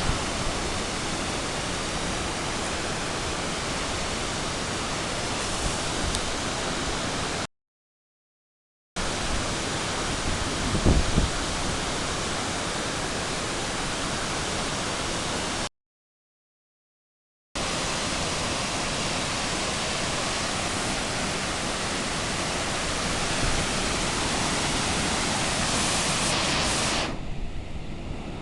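Waterfall rushing close to the microphone, a steady, even noise of falling water. It cuts out to complete silence twice, for a second or two each time, and there is a low bump about eleven seconds in.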